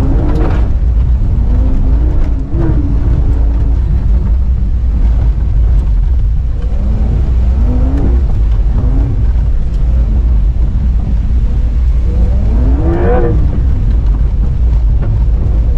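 Porsche 911 Dakar's twin-turbo flat-six engine under hard driving, revving up and dropping back several times, with the strongest climb about thirteen seconds in, over a constant heavy low rumble.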